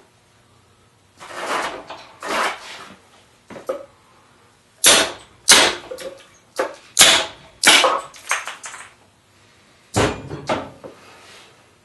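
Sledgehammer blows on the spine of a steel machete blade, pounding its edge down through a wooden 2x4 held in a vise. There are a couple of duller knocks first, then about eight sharp strikes in quick irregular groups. This is a deliberate abuse test of the blade's edge.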